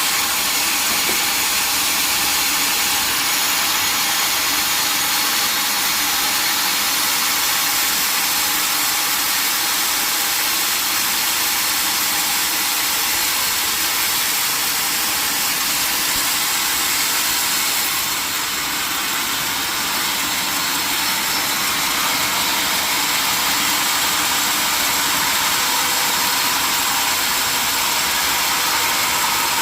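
Old sawmill machinery running with a loud, steady, hissing noise, dipping slightly about two-thirds of the way through.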